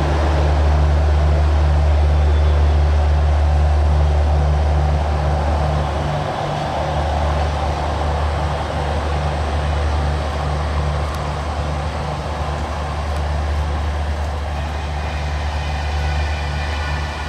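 Indian Railways LHB passenger coaches rolling away on the track: a steady rumble of wheels on rail over the low drone of the rear generator car's diesel, slowly fading.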